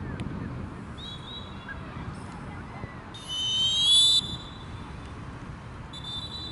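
Referee's whistle blown once, a high steady blast of about a second a little past three seconds in, with fainter short whistle blasts about a second in and near the end.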